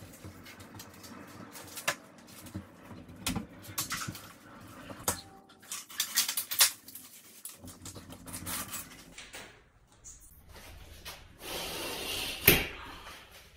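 Window sash being fitted back into its frame: scattered clicks and knocks as it is worked into place, then near the end a short sliding rush that stops in a sharp knock, the loudest sound.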